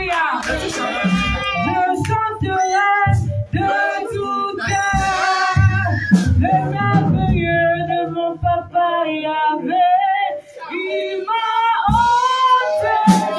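Worship team singing a praise song, women singing into microphones with held and sliding notes.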